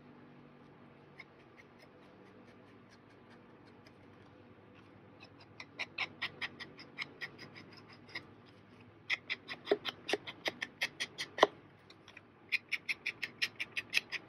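Foam-pad ink blending tool dabbed rapidly against the edge of a paper tag: a run of light taps at about five a second, coming in three bursts from about five seconds in.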